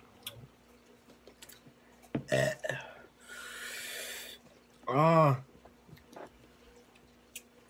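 A few brief throat noises about two seconds in, then a breathy hiss lasting about a second. About five seconds in comes one loud, voiced burp-like sound from a young man's throat that rises and falls in pitch.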